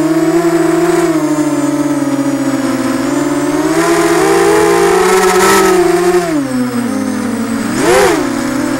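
Eachine Falcon 250 racing quadcopter's brushless motors and propellers whining up close, the pitch rising and falling with the throttle as it lifts off and climbs. The pitch drops about six seconds in, then surges up and back down once near the end.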